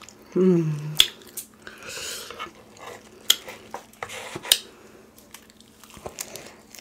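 A short voiced sound from the eater about half a second in, then sharp crackles of crispy fried chicken breading as a piece is torn apart by hand and bitten, with wet chewing and mouth sounds.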